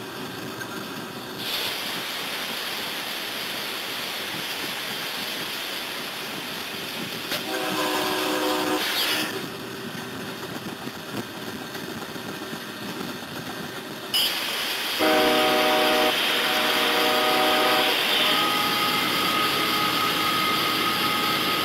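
Locomotive air horn sounding several blasts: one long blast, then after a pause two more in close succession, over the steady running noise of the locomotive cab. Near the end a steady higher tone comes in.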